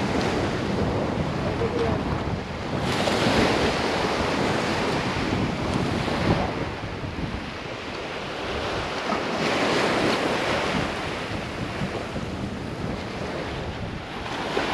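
Small surf breaking and washing up the beach, with wind buffeting the microphone. The wash swells louder about three seconds in and again around ten seconds.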